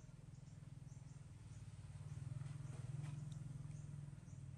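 Faint outdoor background: a steady low hum that grows louder in the middle and eases off, with short high-pitched chirps now and then.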